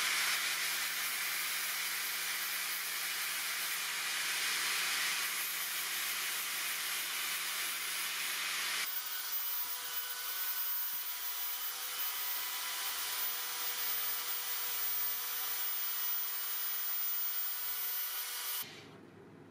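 Small handheld rotary tool running and grinding against the sword's hilt, a steady hiss-like whir. Its sound shifts about halfway through and stops suddenly near the end.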